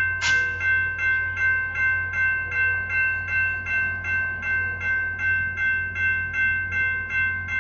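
Railroad crossing bell ringing steadily at about two and a half strikes a second over a steady low hum, with a short hiss just after the start.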